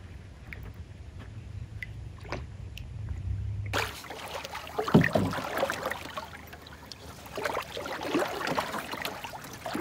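Water sloshing and lapping against the hull of a small Old Town Discovery 119 canoe on the lake, with a louder thump about five seconds in. The first few seconds are quieter: a low steady rumble with a few faint ticks.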